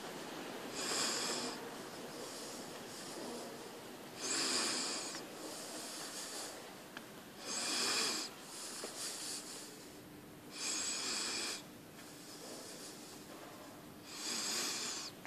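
Breathing close to the microphone: five hissing breaths at an even pace, about one every three and a half seconds.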